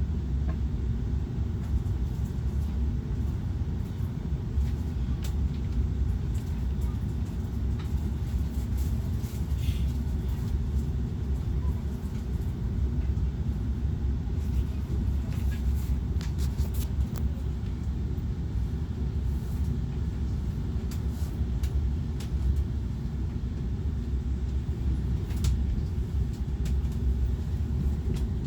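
Steady low rumble of a passenger train in motion, with a few faint light clicks.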